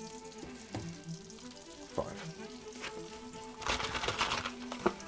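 Fish fingers frying in melted butter in a frying pan, sizzling steadily, with a louder stretch of sizzle near the end and a couple of sharp knocks. Background music with held notes plays under it.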